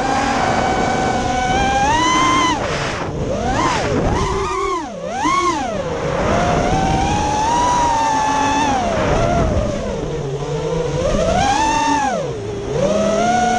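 FPV racing quadcopter's brushless motors and propellers whining, heard from the onboard camera. The pitch swings up and down with each throttle change, dropping low twice.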